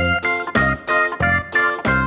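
Background music: a melody of held notes over a steady beat.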